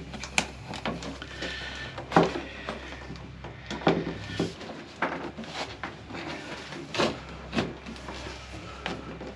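Grey plastic push-fit water pipe and fittings being handled and pushed together: a string of irregular clicks and knocks, the sharpest about two seconds in.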